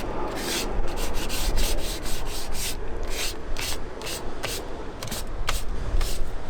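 Hand sanding the worn leather of a steering wheel, quick back-and-forth rasping strokes, about three a second, to smooth the wear area before crack filler goes on.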